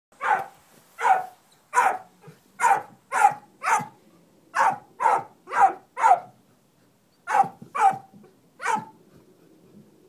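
A dog barking at a baby buzzard it has found: about thirteen separate barks, one to two a second, with a brief pause about two-thirds of the way through.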